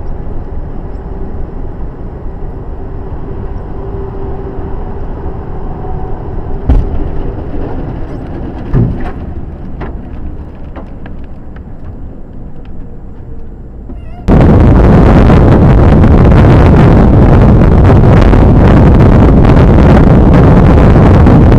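Dashcam sound from inside a vehicle on a highway: steady road noise and engine hum, broken by two loud impacts about two seconds apart, around seven and nine seconds in, as debris from a crash scatters across the road ahead. About fourteen seconds in it cuts abruptly to much louder wind buffeting and road rumble on a dashcam microphone.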